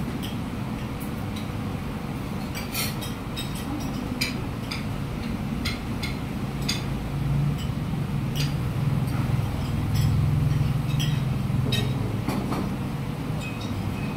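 Spoons and forks clinking against plates and cups during a meal, short sharp clicks scattered throughout, over a steady low rumble of street traffic that swells for a few seconds in the middle.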